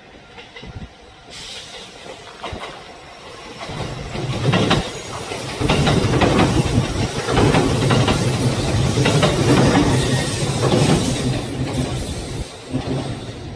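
JR Central 313 series electric train passing close by, its wheels clacking over rail joints in repeated beats over a steady rumble. It grows louder about four seconds in and fades near the end.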